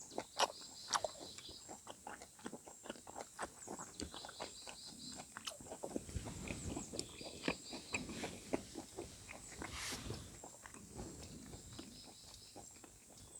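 A person chewing and eating close to the microphone, with soft irregular mouth clicks and smacks.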